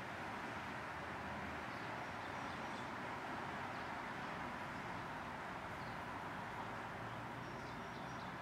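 Steady background hiss and rumble, with a few faint, brief, high-pitched bird chirps about two seconds in, around six seconds and again near the end.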